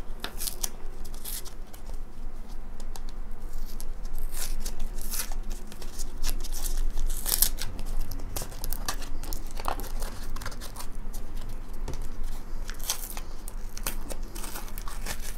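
A paper envelope being torn open and handled: irregular tearing and crinkling of paper.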